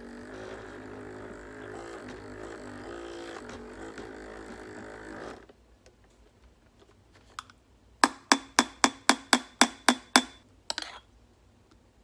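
The Ninja Specialty Coffee Maker's built-in frother whirring, its whisk spinning in cold heavy cream, then cutting off about five seconds in. Later comes a quick run of about ten sharp taps, then a couple more near the end.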